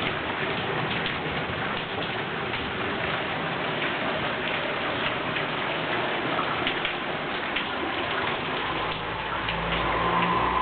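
Steady rain falling and pattering on surfaces, with scattered drips. A low rumble joins in for a couple of seconds near the end.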